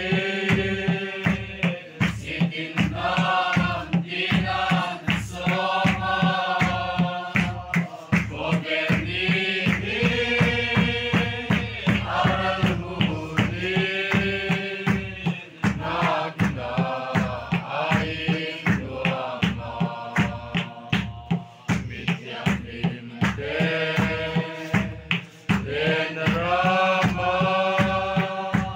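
A crowd of men and women singing a Mizo mourning song (khawhar zai) together in long held phrases, over the steady beat of a khuang, the Mizo cylindrical drum.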